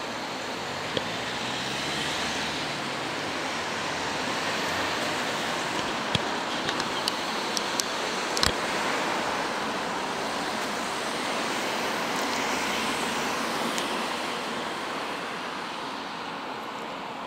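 Steady outdoor background noise, an even rushing sound with no single source standing out, broken by a handful of sharp clicks about six to eight and a half seconds in.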